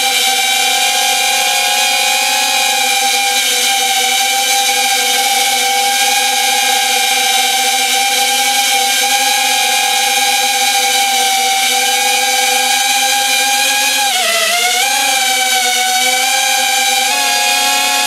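Small quadcopter's brushless motors and 3.5-inch propellers whining at a steady pitch, dipping briefly and climbing back about fourteen seconds in.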